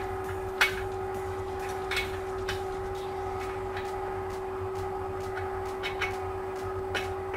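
A few light metallic clicks as a bolt with a spring washer is handled and threaded in by hand near a motorcycle's rear sprocket, over a steady background hum.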